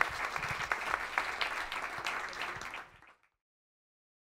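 Audience applauding, a dense patter of many hands clapping that fades out about three seconds in, then cuts to silence.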